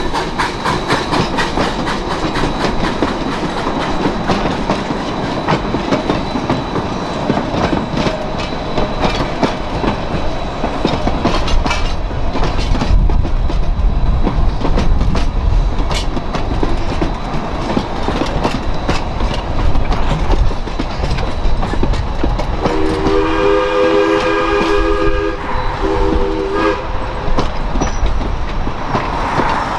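Former Alaska Railroad 152 narrow-gauge steam locomotive and its train rolling along with a steady rhythmic clicking. About 23 seconds in, the locomotive's whistle sounds several notes at once in a long blast, then a shorter one.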